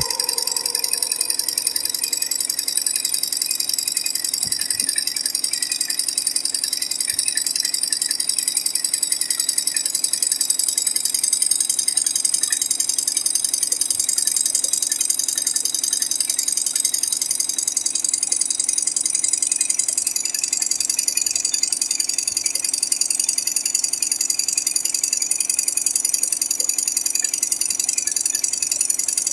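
Single-head, eight-needle computerized embroidery machine stitching, a fast, even, steady clatter of its needle mechanism.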